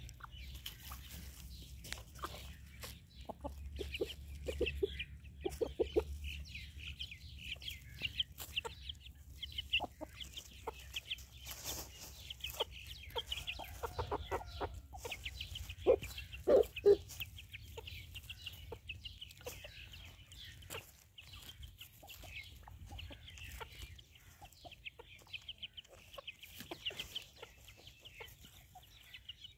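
Aseel chickens clucking while foraging, with scattered short clicks and a low rumble underneath; a few louder noises stand out about sixteen seconds in.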